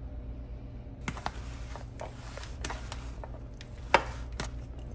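A serving spoon stirring chopped vegetables in a plastic bowl: irregular clicks and scrapes of the spoon against the bowl, with one sharper knock about four seconds in.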